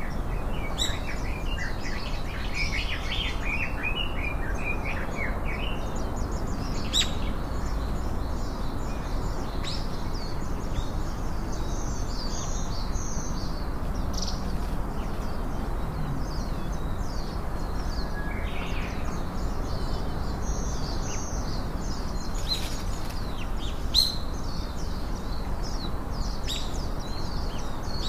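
Small birds chirping and twittering over a steady background hiss, with a few sharp ticks, the loudest near the end.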